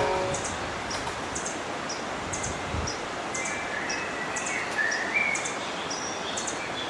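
Birdsong over the steady rush of a flowing river: short, high chirps repeating about once a second, with a few sliding calls.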